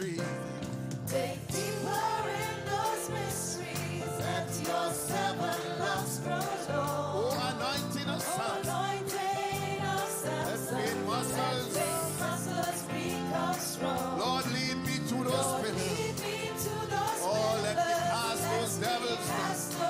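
Gospel worship music: voices singing a wavering, drawn-out melody over instrumental accompaniment with sustained low notes and percussion.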